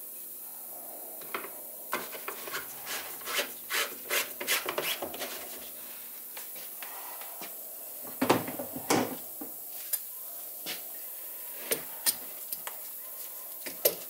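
A plastic paint spray gun cup and its lid being handled and fitted together on a workbench: irregular clicks, scrapes and rubbing. There is a dense run of them in the first third and the loudest cluster a little past halfway.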